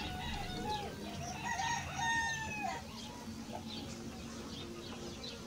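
A rooster crowing once: one long call that falls in pitch at its end, about two seconds long and ending near three seconds in.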